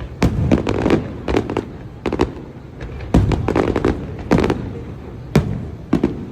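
Aerial fireworks bursting: a rapid, irregular series of sharp bangs and booms with rumbling tails. The biggest bursts come about three seconds in and again a little after five seconds.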